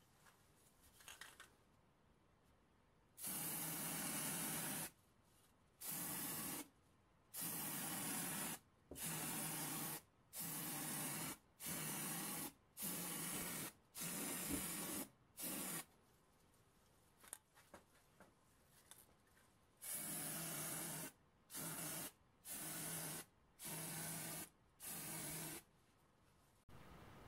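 Aerosol spray can of black paint spraying in short bursts of about a second each, around fourteen bursts in two runs with a pause of a few seconds in the middle.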